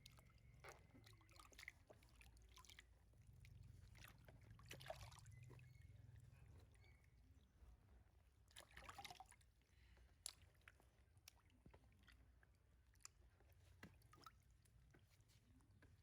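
Near silence: a faint low hum with scattered soft clicks and two brief soft rustles, about five and nine seconds in.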